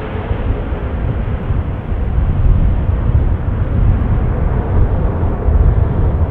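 Aircraft engine noise: a steady low rumble that grows a little louder about two and a half seconds in.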